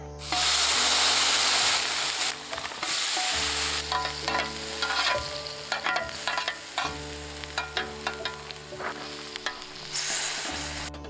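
Food frying in a hot pan, with a loud burst of sizzling for about the first two seconds, then a utensil clicking and scraping against the pan as the food is stirred.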